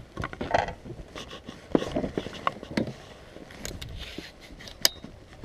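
Scattered knocks and clicks of handling and movement in a fishing boat, a few sharper ones standing out.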